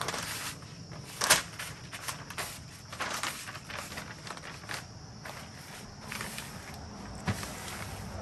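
Butcher paper, damp with mop sauce, rustling and crinkling in uneven bursts as it is folded tightly around a brisket, with a sharp crackle about a second in.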